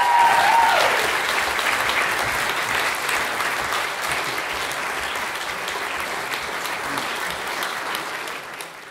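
Audience applauding, loudest at first and slowly easing off toward the end; a held note stops within the first second.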